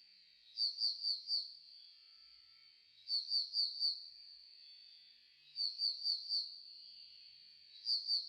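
Nightingale song slowed down four times: a phrase of four short, high, pulsing notes repeating about every two and a half seconds, four times over, with a faint high tone holding between phrases.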